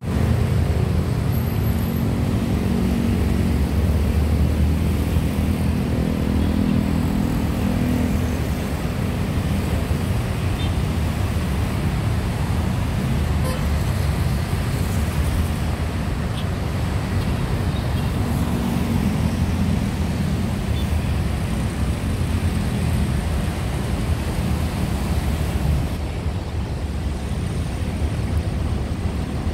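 Steady traffic noise of dense city traffic, cars and motorcycles streaming along a multi-lane avenue. A deeper engine rumble swells during the first several seconds and again around the middle.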